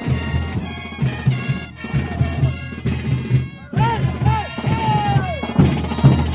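Bolivian brass band playing carnival dance music over a steady bass-drum beat. About halfway through the band breaks off briefly, then comes back in with high notes that bend up and down.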